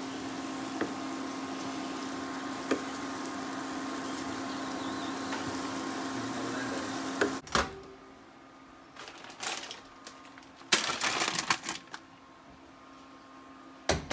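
Steady hum and hiss from a portable induction hot plate with a pan of hot dogs simmering on it. After a cut comes clatter at an open over-the-range microwave, several short bursts, ending in one loud bang as the microwave door is shut.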